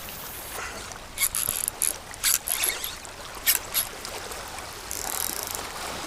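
Shallow water splashing and trickling, with a string of irregular sharp splashes through the middle few seconds.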